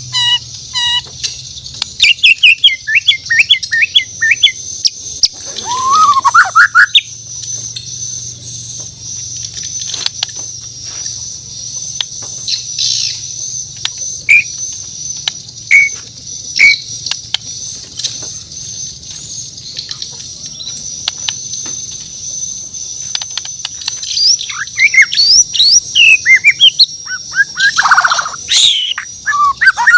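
A white-rumped shama (Bornean murai batu) singing in bursts of rapid whistled notes, glides and sharp clicks. The bird is busy at the start, sings only scattered single notes through the middle, and turns busy again towards the end. A steady high-pitched whine runs underneath throughout.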